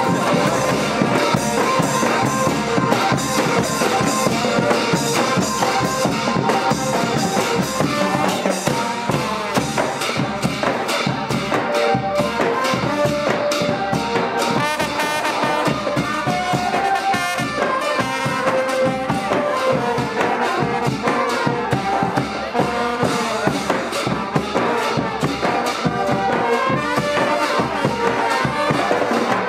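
Upbeat procession music from a brass band, horns playing a melody over a steady drum and cymbal beat.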